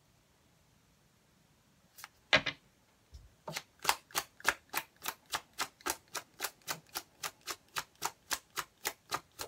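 Tarot deck being overhand-shuffled by hand. A couple of louder card snaps come about two seconds in, then a steady run of crisp card slaps, close to four a second.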